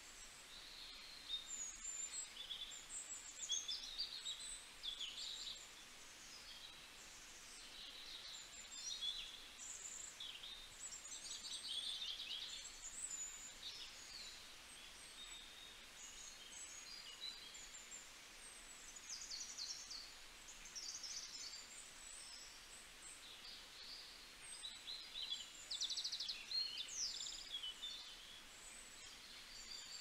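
Small birds singing, a dense run of high, quick chirps and trills overlapping one another over a faint steady hiss. They come in busier spells near the start, in the middle and near the end.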